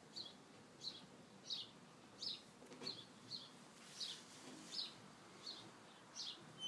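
A bird repeating short, high chirps, nearly two a second, faint over quiet garden background.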